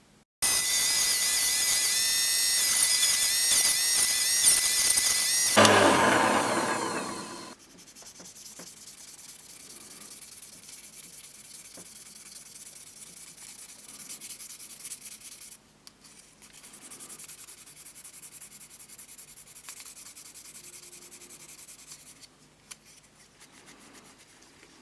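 A small high-speed power tool runs with a high whine, then winds down with a falling pitch about six seconds in. Quieter hand rubbing or sanding of a metal part follows, stopping briefly twice.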